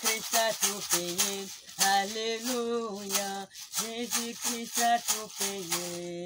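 A woman singing a slow hymn tune in long held notes while shaking a hand shaker in a steady beat of about four shakes a second. The shaking fades out in the second half, and the singing ends on a held note.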